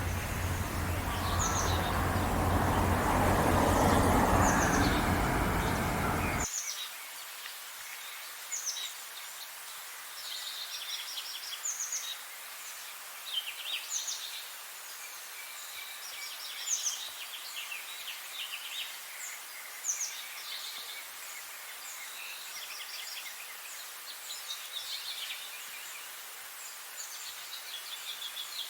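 A loud rumbling, rushing noise that swells and then cuts off abruptly about six seconds in, followed by several wild songbirds chirping and singing in short high phrases over a steady hiss of outdoor ambience.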